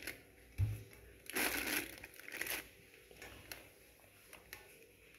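Plastic piping bag crinkling and a spoon scraping as stiff meringue is spooned into it, with a dull knock about half a second in.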